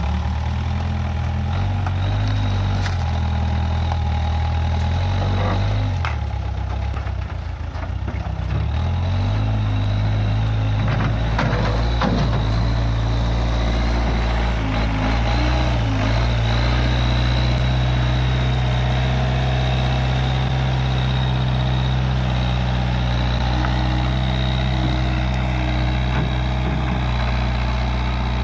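Case 580G backhoe loader's engine running, its pitch shifting and dipping briefly during the first several seconds, then holding steady, with a few knocks from the machine working.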